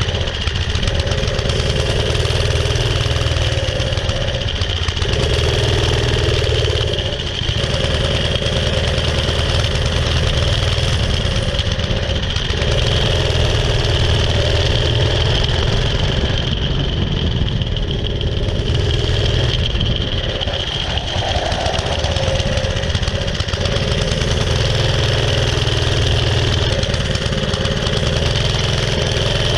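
Vintage mini bike's Briggs & Stratton single-cylinder engine running while the bike is ridden, its note dipping and picking up again a few times as the throttle changes.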